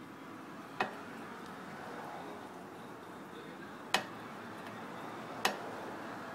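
Three sharp, isolated clicks, about a second in, about four seconds in and a second and a half later, as the propeller of an 8 hp Mercury four-stroke outboard is turned by hand, over a steady low hiss.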